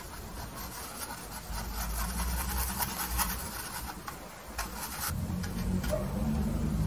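Bristle paintbrush scrubbing and dabbing oil paint onto a canvas, a dry scratchy rubbing with a few light taps. A low steady hum comes in about five seconds in.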